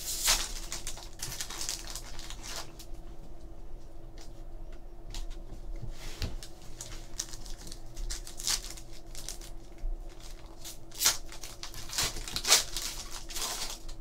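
Foil trading-card pack (2014 Topps Chrome baseball) crinkling and tearing as it is opened by hand, in short, irregular rustles, with sharper crackles just after the start and twice near the end.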